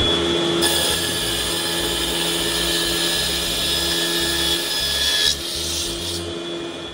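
Multi-blade rip saw cutting a wooden board lengthwise into several strips, a steady machine noise with a held whine. About five seconds in the higher part of the whine stops and the sound grows quieter.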